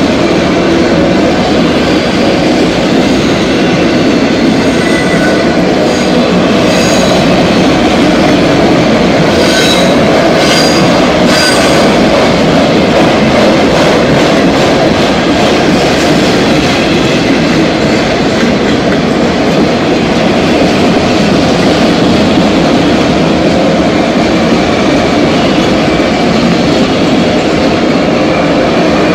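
Freight train's autorack cars rolling past: a steady, loud rumble and clatter of steel wheels on the rails. Thin high wheel squeals come and go in the first half.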